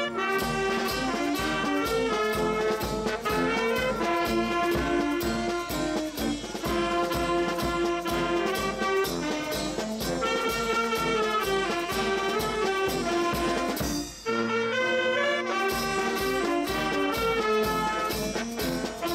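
Carnival brass band of saxophones, trumpets and sousaphone playing a lively tune over a steady drum beat, breaking off briefly about two-thirds of the way through.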